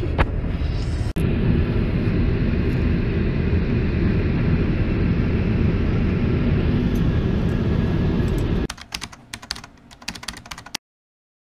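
Steady road and engine rumble inside a moving car. Near the end it gives way to a rapid, irregular run of sharp clicks, like typing, lasting about two seconds and cutting off suddenly.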